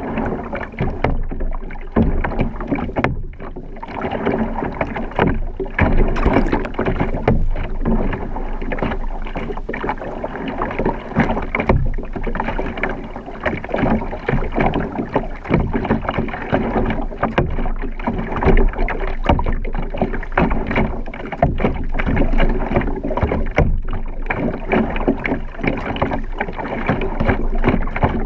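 Water splashing and sloshing around an acoustic guitar being dunked and drawn through the water beside a paddleboard, in a choppy run of many short splashes, with a few faint steady tones underneath.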